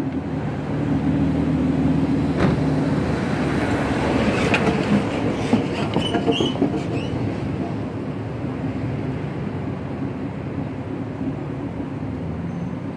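Infiniti G35 coupe's 3.5-litre V6 idling steadily, through an exhaust that the owner says has a leak. A few light clicks and knocks come between about two and seven seconds in.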